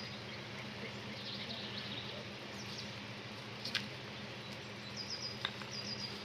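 Outdoor ambience: small birds chirping in short, high, repeated notes over a steady low hum, with a couple of sharp clicks about four and five and a half seconds in.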